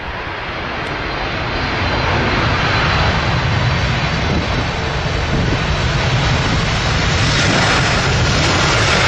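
Boeing 767 freighter's twin jet engines on the landing rollout: a loud, even rush that swells over the first few seconds and then holds steady.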